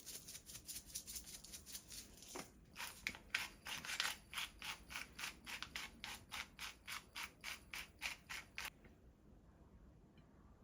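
Rhythmic rubbing or scraping strokes, about three or four a second, that stop near the end.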